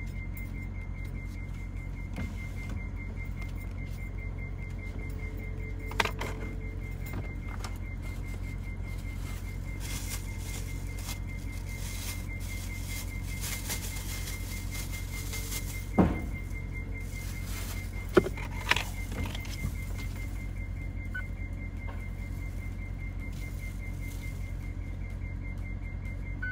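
Steady low hum of an idling car heard inside the cabin, with a faint, rapid high-pitched ticking tone that stops near the end, followed by a short beep. A few sharp knocks sound about a third of the way in and again past the middle.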